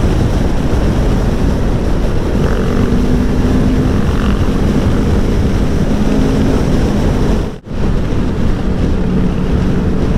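Aprilia Tuono V4 1100's 65-degree V4 engine running steadily at road speed under heavy wind rush on the helmet microphone. About two-thirds of the way through, the sound cuts out almost completely for a split second, then returns.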